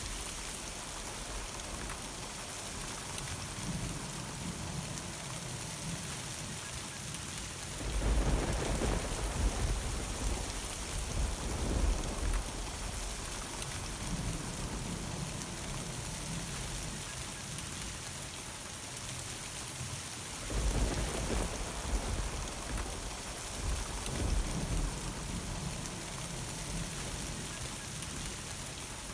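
Steady thunderstorm rain falling, with thunder rumbling twice: once about eight seconds in and again about twenty seconds in, each rumble lasting a few seconds.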